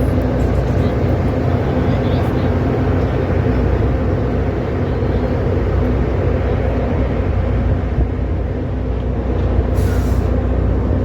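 Passenger ferry's engines running at a steady drone, heard on board: a constant low hum of several steady tones over an even wash of noise.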